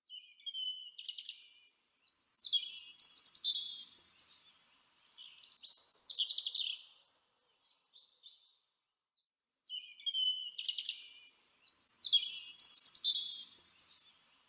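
Songbird singing: a quick, varied phrase of chirps and downslurred whistles, then after a pause of about two seconds much the same phrase again.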